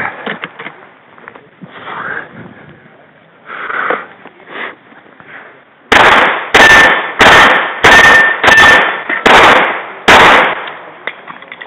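Handgun firing seven shots in a steady string about two-thirds of a second apart, starting about six seconds in. A few quieter knocks come before the shots.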